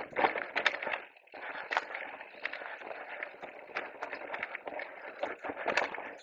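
Radon Deft 8.0 electric mountain bike rolling down a rocky singletrack: tyres crunching over stones and the bike clattering, with many sharp knocks from rocks and roots and a brief lull about a second in.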